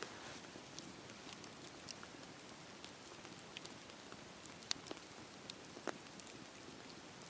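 Campfire burning: a soft steady hiss of flames with scattered sharp crackles and pops from the burning wood, two louder pops about halfway through.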